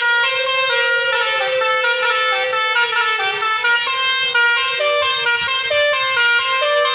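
Bus 'basuri' musical horn playing a melody: a quick run of stepping horn notes over a steady held tone, loud and without a break.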